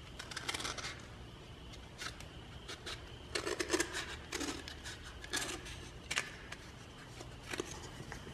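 Tin snips cutting a cardboard tube template: short snipping cuts at irregular intervals, thickest between about three and a half and four and a half seconds in.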